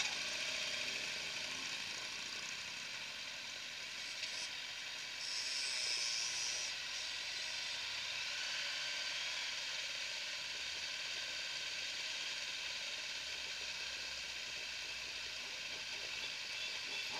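Steady hissing road noise from a column of motorcycles riding slowly on a wet road, with no clear engine note standing out; it swells briefly about five seconds in.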